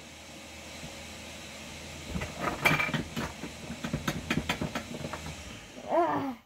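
Rapid clattering and knocking of small objects being rummaged through and handled, starting about two seconds in, with a short vocal sound near the end.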